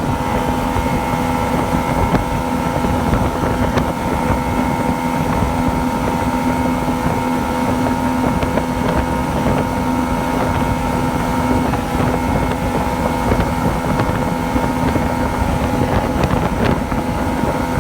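Yamaha two-stroke engine running at a steady speed, an engine said to misfire and surge, with wind on the microphone.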